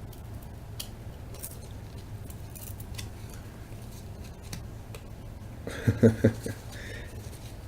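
Chrome trading cards being pulled apart and handled: scattered faint clicks and snaps as the stuck-together cards come free, with a short run of louder handling sounds about six seconds in.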